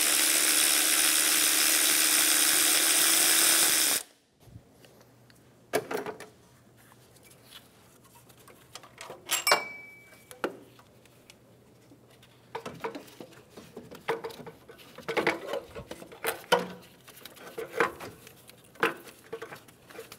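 A handheld power tool runs steadily for about four seconds, then stops, spinning a bolt out of the alternator mount. After that come scattered metal clinks and knocks, one with a short ring, as the bolt is pulled and the alternator is worked loose.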